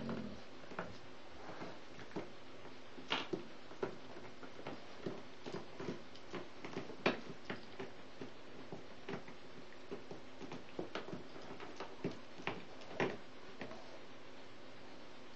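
Dogs rummaging in a plastic toy box full of soft toys: irregular light knocks, taps and rattles of toys and muzzles against the plastic, a few of them sharper and louder.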